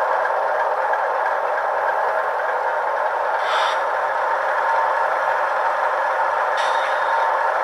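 Sound decoder of an HO-scale GE ET44AC model locomotive playing its diesel startup sequence through the model's small onboard speaker: a steady engine sound with little bass. Short hisses come a little over three seconds in and again near the end.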